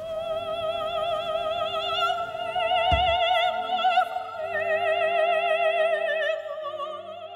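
An operatic voice holds one long high note with wide vibrato over soft orchestral accompaniment, with a low thud about three seconds in.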